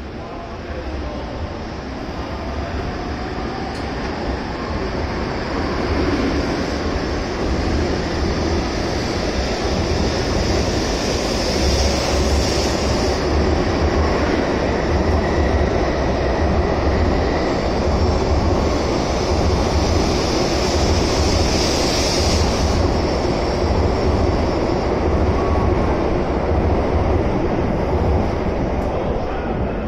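N700S Shinkansen pulling out and accelerating past the platform: a whine that rises slowly in pitch over a dense rush of wheel and air noise with a deep rumble, growing louder over the first six seconds and then holding steady.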